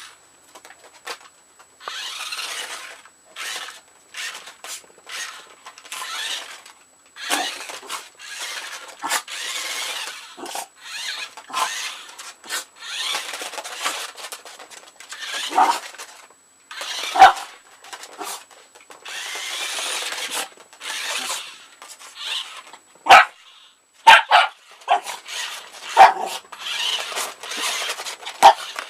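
Small Yorkshire terrier barking in short sharp yaps, several of them loud, over a radio-controlled toy truck driving in repeated short bursts of whirring and hiss, with clicks and knocks in between.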